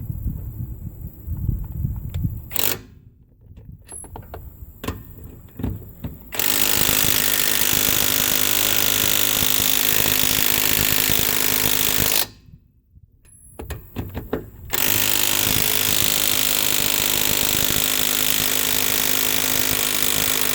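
A ZISS 1/2-inch cordless impact wrench hammering on a tight lug nut in two long runs of about six seconds each, with a short pause between, working the nut loose. A few knocks come before the first run.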